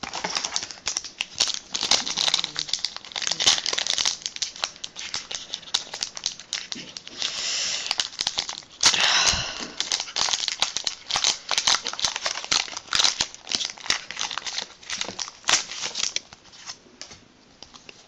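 Foil Pokémon booster pack wrapper crinkling and crackling in the hands as it is torn open. There are two longer rips, about seven and nine seconds in.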